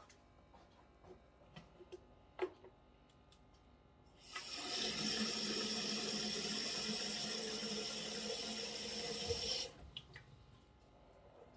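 A few light clicks and knocks, then a tap running water into a sink for about five seconds before being shut off.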